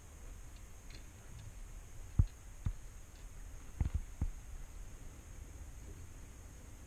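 A handful of short, dull thumps about two to four seconds in, the first the loudest, as the camera mounted in an aluminum jon boat is bumped and knocked askew. Low wind rumble on the microphone underneath.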